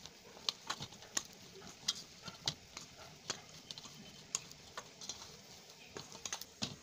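Hands kneading soft bread-and-milk dough in a stainless steel bowl, giving irregular light clicks and taps against the bowl.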